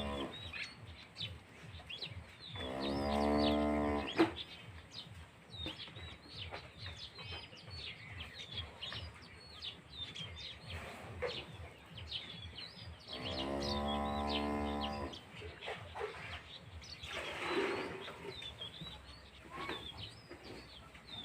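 Dairy cows mooing: two long moos about ten seconds apart, with small birds chirping steadily in the background.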